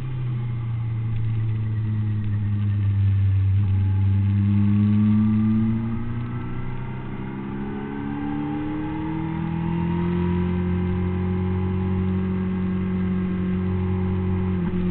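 Honda CBR600RR's inline-four engine running hard at high revs, easing off about six seconds in and then building revs again.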